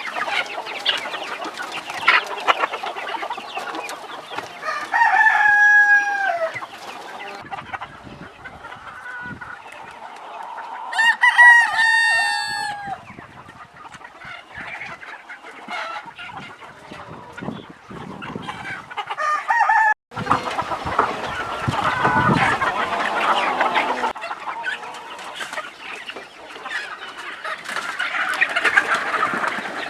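A flock of free-range chickens clucking, with a rooster crowing about five seconds in and overlapping rooster crows a few seconds later. The clucking cuts off for an instant about two-thirds of the way through, then carries on thick and busy.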